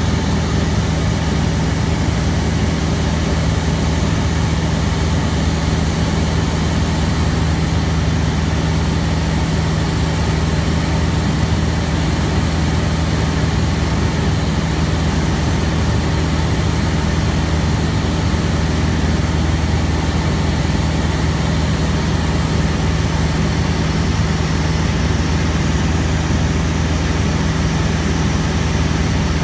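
Van's RV-6A light aircraft's single piston engine and propeller running steadily in flight, heard from inside the cockpit as an even low hum that does not change.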